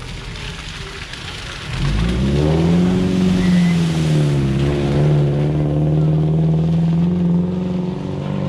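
Classic saloon car driving through a shallow ford. About two seconds in, its engine note comes in loud, rising then dipping and holding steady, over the hiss of water sprayed up by the tyres.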